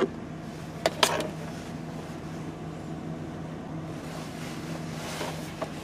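Steady low hum and hiss from a CB radio setup and its external speaker between test transmissions, with a sharp click about a second in and a brief swell of hiss near the end.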